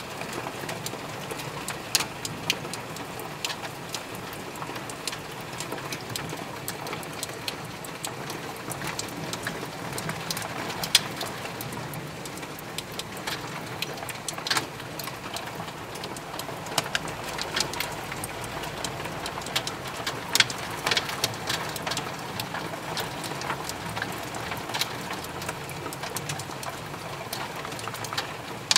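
Hailstorm with rain: a steady hiss of falling rain with many scattered, sharp clicks and knocks of hailstones striking hard surfaces.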